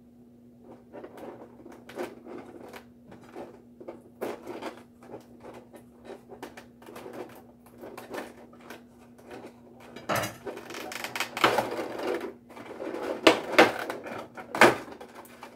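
Clear plastic blister tray crinkling and crackling as it is handled and pried apart, a run of small clicks that grows louder and busier in the last few seconds, with a sharp crack near the end.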